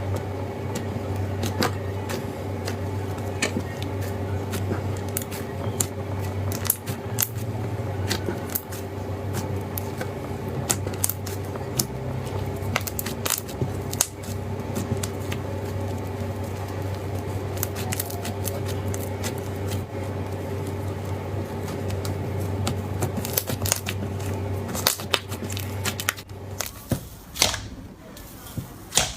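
Slime being handled, squished and poked, giving many small crackles and clicks over a steady low hum; the hum stops about four fifths of the way through, leaving a few sharper clicks.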